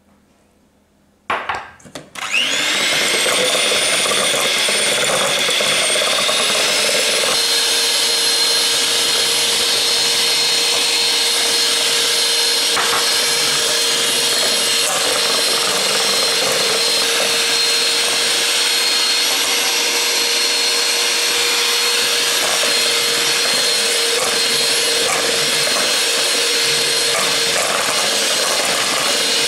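Electric hand mixer switched on about a second in with a couple of short starts, then running steadily, its whine climbing in pitch as the motor comes up to speed. The beaters are whipping egg yolks and olive oil in a stainless steel bowl into mayonnaise.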